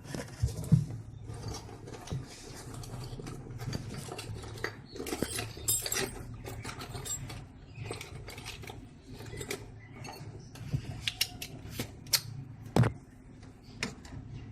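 Irregular metallic clinks, taps and knocks of a spanner and nut being worked onto the spin motor's pulley shaft in a semi-automatic washing machine, with a couple of louder knocks near the start and near the end.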